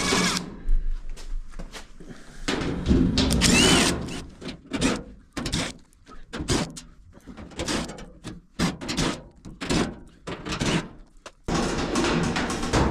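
Power drill or driver running in repeated short bursts, mixed with knocks and clatter, as screws come out and a clothes dryer's cabinet is opened.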